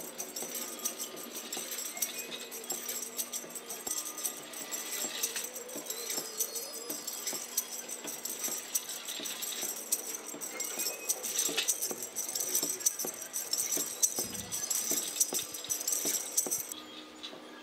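Motorised Easter-bunny figures moving, one shaking a tambourine: small jingles, mechanical clicking and short squeaks from the mechanisms. A steady high hiss cuts off suddenly shortly before the end.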